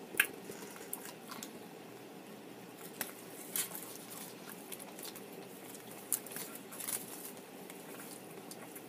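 A person chewing food: soft wet mouth sounds with a handful of sharp clicks and smacks spread out, louder ones about 3.5 s and 6 s in.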